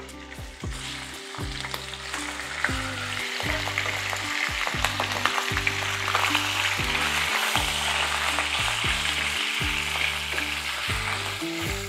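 Fatty minced beef frying in hot melted lard in a pan: a steady sizzle that builds up about half a second in, with scattered clicks as it is stirred.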